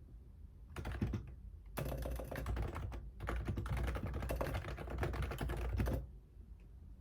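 Typing on a computer keyboard: rapid bursts of key clicks with short pauses, stopping about six seconds in.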